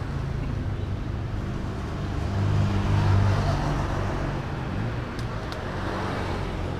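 Road traffic going by: a vehicle engine's low hum swells to its loudest about halfway through and then eases off. Two faint clicks come near the end.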